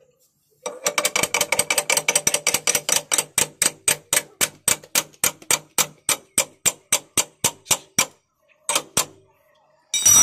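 Steel ring spanner tapping rapidly on the end of a motorcycle's front axle to drive the shaft out of the wheel hub: metal-on-metal clinks at about five or six a second, each ringing briefly. The taps slow near the end, and a louder clang follows.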